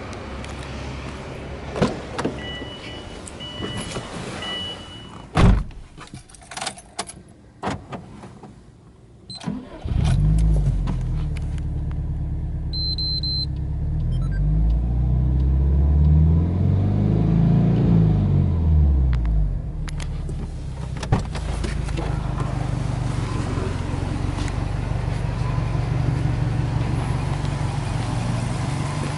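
Clicks and knocks from the car's door and cabin, with a repeated electronic chime. About ten seconds in, a Subaru Impreza WRX STI's turbocharged flat-four starts and runs at idle, rising and falling in revs a few times, then settles into a steady idle.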